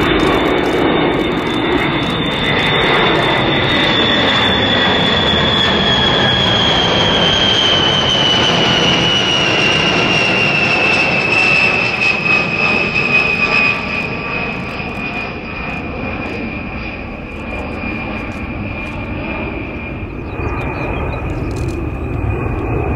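Boeing B-52H Stratofortress's eight TF33 turbofan engines on a low pass: a loud jet rumble with a high whine that slides slowly down in pitch as the bomber goes by and away. It grows quieter a little past halfway.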